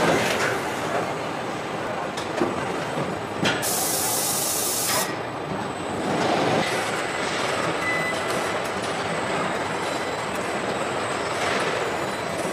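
Car body-shop production line with industrial welding and handling robots running: a steady machinery din with scattered clicks, and a sharp burst of hiss lasting about a second and a half a little over a third of the way in.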